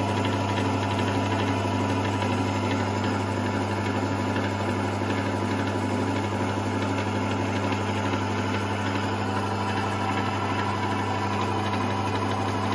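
Emco Emcomat 7 bench lathe running with an empty chuck, not cutting: its 230 V single-phase motor and headstock drive give a steady hum with a faint higher whine.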